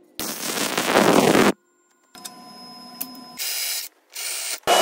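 Welding gun crackling as it lays a MIG bead on a 1/4-inch steel plate for about a second, then several short, clipped bursts of other shop noise.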